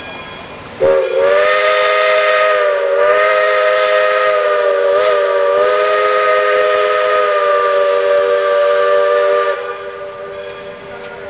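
Steam locomotive whistle blowing one long blast of about nine seconds, a chord of several close notes that starts abruptly about a second in and wavers slightly in pitch twice before cutting off.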